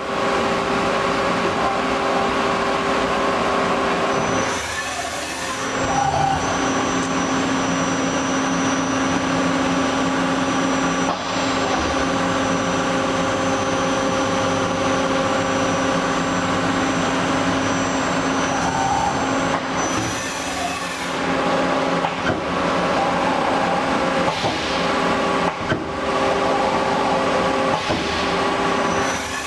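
1999 Hardinge Cobra 65 CNC lathe running: a steady machine hum with several held tones, broken by short rushes of noise about five seconds in, around twenty seconds and twice more near the end.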